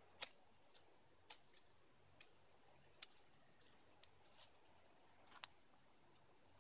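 Small twigs snapping sharply as a conifer bough is broken up by hand: six crisp snaps, roughly one a second.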